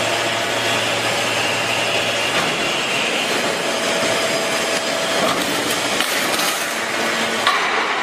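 Hydraulic scrap metal baler running: steady mechanical noise from its hydraulic power unit as the press works, with a couple of light knocks in the second half.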